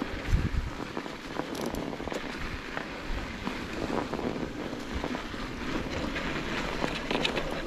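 Vintage mountain bike's 26-inch tyres rolling and crunching through snow, with small crackles and rattles, over wind noise on the microphone.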